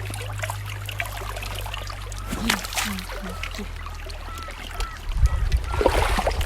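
River-side ambience: water trickling, with faint short calls or voices, and wind buffeting the microphone from about five seconds in.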